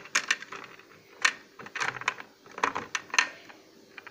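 Tiny hard-plastic doll accessories clicking and clattering against each other and the plastic storage box as they are sorted through by hand, in several short runs of clicks.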